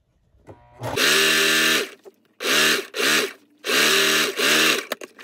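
Singer sewing machine stitching in four short runs, its motor whine rising as each run starts and dropping as it stops. A few light clicks follow the last run.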